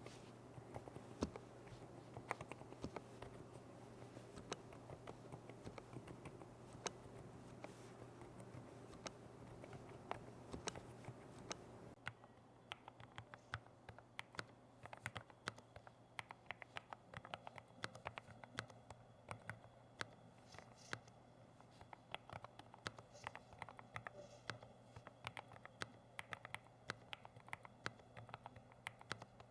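Typing on a YOGO 75 PRO low-profile mechanical keyboard: a quiet, irregular run of soft keystroke clicks over a faint steady hum. The background hum drops about twelve seconds in.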